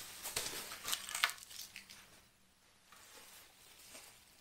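Plastic packing wrap crinkling and rustling as it is pulled off a part, loudest in the first second and a half, then fading to faint rustles.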